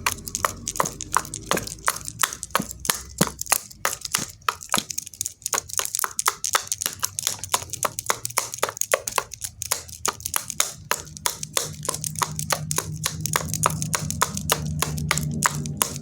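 Rapid tapping of a wooden pencil on a hard surface, about four or five sharp taps a second, with a low steady hum joining in about two-thirds of the way through.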